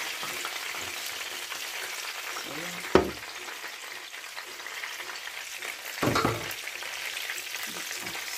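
Batter-coated shrimp deep-frying in a pan of hot oil, a steady sizzle. A sharp knock comes about three seconds in and a louder knock about six seconds in.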